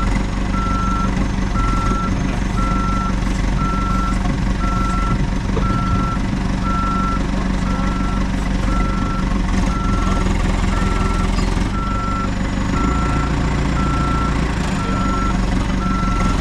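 Caterpillar backhoe reversing: its backup alarm beeps steadily about once a second over the running diesel engine.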